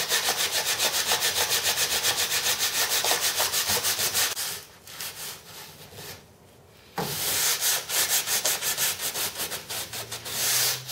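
Sandpaper on a thin plastic strip rubbing quickly back and forth in the aileron hinge gap of a moulded fibreglass wing, sanding a bevel under the top skin so the aileron can fold back beneath it. Fast, even strokes for about four seconds, a pause of about two seconds, then sanding again in less regular strokes.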